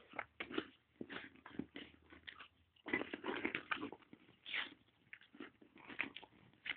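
A Belgian Malinois dog making a run of short, uneven sounds, busiest between about three and four seconds in.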